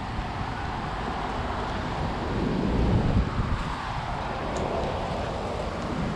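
Wind buffeting the microphone with a gusty low rumble over a steady rushing noise.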